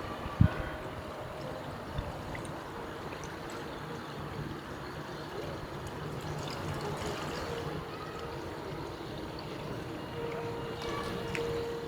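Steady trickling and running water, with a low thump about half a second in and a smaller one at two seconds.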